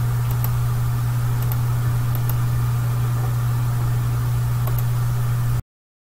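Steady low electrical-sounding hum with faint hiss, the background noise of the narration recording, cutting off abruptly to silence about five and a half seconds in.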